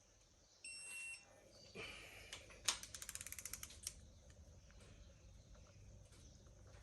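A single short electronic beep, then a quick run of ratchet clicks, about ten a second, as an angle-reading torque wrench takes engine bolts through a further 90 degrees after 40 Nm.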